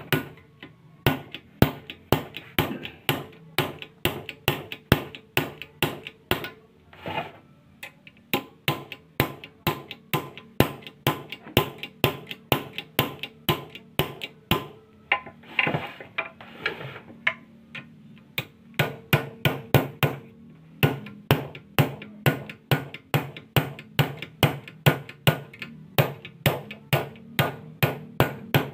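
Steel hammer repeatedly striking a punch on a tie rod end clamped in a bench vise, metal on metal at about three blows a second, with two brief pauses. The blows are part of reworking a worn, loose tie rod ball joint to take up its play.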